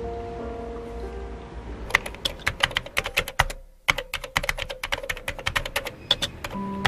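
Typing on a laptop keyboard: quick, irregular key clicks starting about two seconds in, with a brief pause partway through. Soft music fades out before the typing and comes back near the end.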